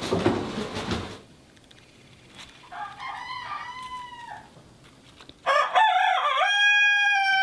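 Rooster crowing twice: a fainter crow about three seconds in, then a loud, longer crow near the end with a drawn-out held final note. A second of noise comes before them at the start.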